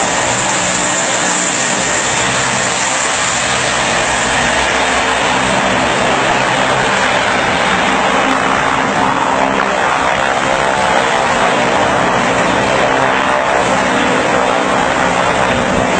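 Engines of a small twin-engine turboprop plane running steadily as it taxis and swings round on the apron, with propeller drone and a high engine whine.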